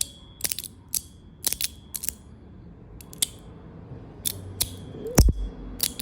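Juzhedc tuning fidget slider being snapped open and shut over and over: sharp clicks, several followed by a brief high ringing tone, the slider's tuning sound. A dull thump about five seconds in is the loudest moment.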